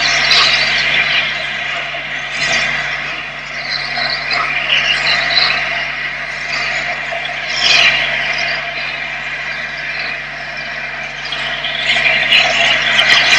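LNER A4 Pacific steam locomotive, a three-cylinder 4-6-2, starting away under heavy steam: loud hissing steam and exhaust beats that swell and fade several times, with a steady low hum underneath.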